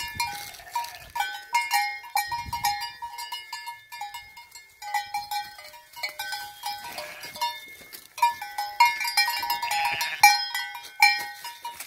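Sheep bells (cencerros) clanking irregularly as the sheep move and graze, many quick metallic strikes that ring briefly, thinning out for a moment in the first half.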